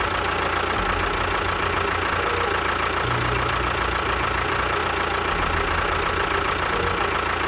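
An engine or motor running steadily, with an uneven low pulsing and a constant high whine.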